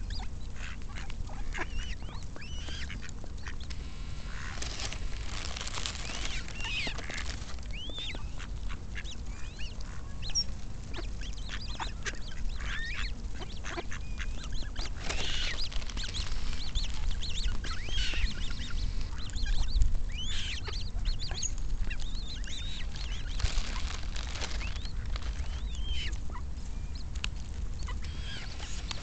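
Eurasian coots and mallards calling as they forage at close range: many short, high calls from the coots mixed with mallard quacking.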